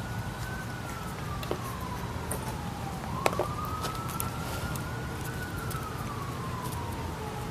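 Emergency vehicle siren in a slow wail, one tone sliding down and back up over several seconds, over a steady low rumble. A few sharp taps cut in, the loudest about three seconds in.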